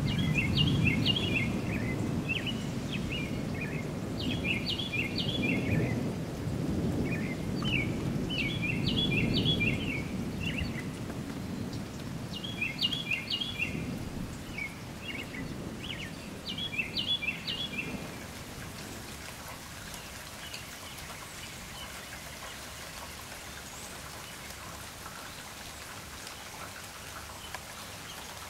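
Thunder rumbling low and dying away over the first ten seconds under steady rain, while a songbird sings a short phrase of quick notes about every four seconds, five times in all. The birdsong marks the storm passing. After that there is only the rain, more quietly.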